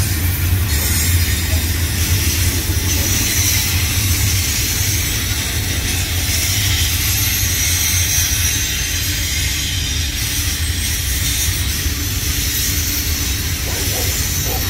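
Double-stack intermodal well cars of a freight train rolling past: a steady rumble of steel wheels on the rails with a high hiss over it.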